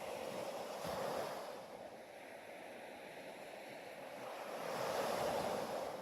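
Ocean waves washing in, swelling twice: once about a second in and again, louder, around five seconds.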